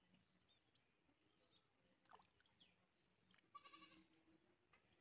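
Near silence: faint outdoor ambience with scattered faint chirps and one brief, faint animal call about three and a half seconds in.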